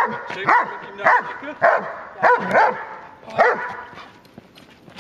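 Large white shepherd-type dog barking repeatedly at a protection-training helper, about seven loud barks that stop about three and a half seconds in.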